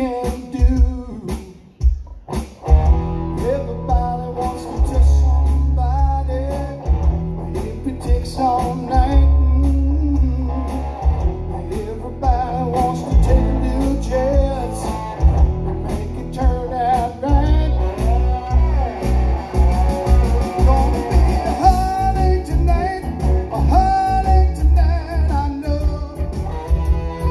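Live amplified music: a man singing over his guitar, with a deep bass line coming in about three seconds in.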